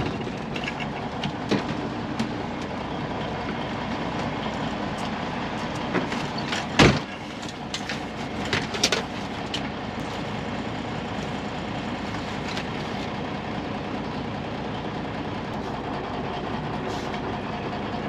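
Semi truck's diesel engine running, heard from inside the cab, with scattered rattles and knocks from the cab and one sharp clack about seven seconds in.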